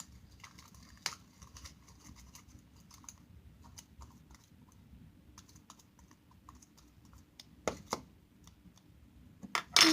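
Faint scattered clicks and sticky ticks of slime being stirred with a spoon in a bowl, with two sharper knocks of the spoon against the bowl about three-quarters of the way through.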